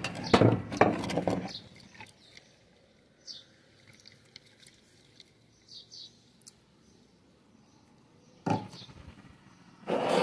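Clattering handling noises in the first second or so, then faint short bird chirps every second or two, with a knock near the end.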